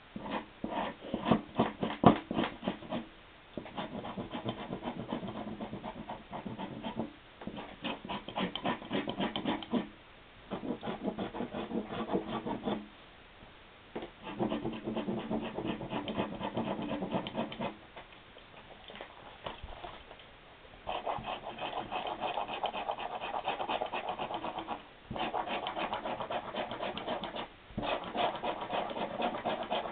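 Dried acrylic paint being scraped off candle-waxed magazine paper, a sgraffito technique. Rapid scratching strokes come in spells of a few seconds, with short pauses between them.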